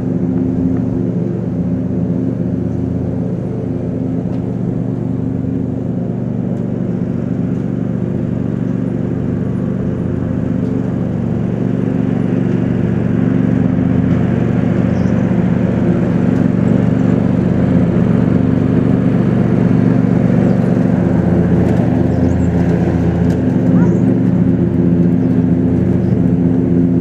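A steady motor drone, a constant low pitched hum that gets a little louder about halfway through.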